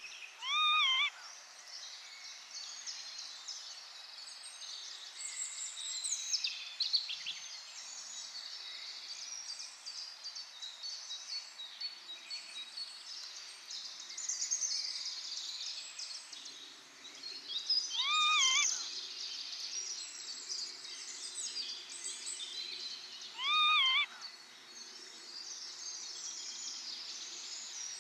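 Northern lapwings giving three loud rising-and-falling calls, near the start, about 18 s in and about 24 s in, over a steady twittering chorus of smaller birds. These are the alarm calls of parent lapwings mobbing storks that came too near their chicks.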